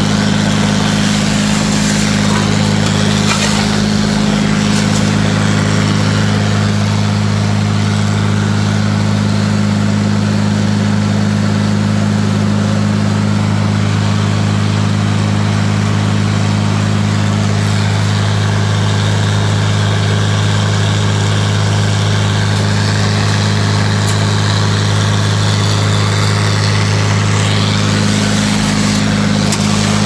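Tractor engine running steadily under load, driving a grinder-mixer as it grinds shelled corn: a steady low hum with the rushing hiss of the grinding on top.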